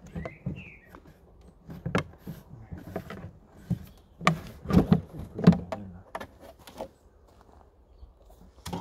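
Plastic beehive roof, stuck fast to the hive, being worked loose and lifted off by hand: a string of creaks, scrapes and knocks, busiest around the middle.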